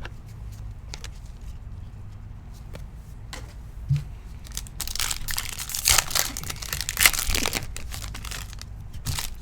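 Foil trading-card pack wrapper being torn open and crinkled, a dense crackling rustle in the middle with a couple of sharper rips, around scattered small handling clicks.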